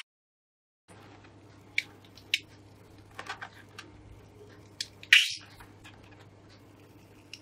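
Blue slime squeezed out of the neck of a rubber balloon onto a dish of slime, making faint sticky crackles and squelches over a low hum. A louder short squelch comes about five seconds in.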